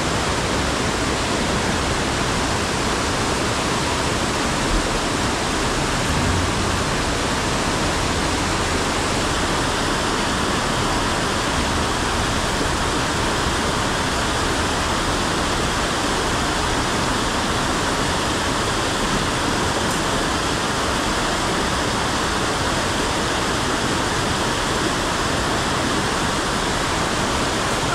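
Fast mountain stream rushing over rocks in white-water cascades, a steady loud noise of water.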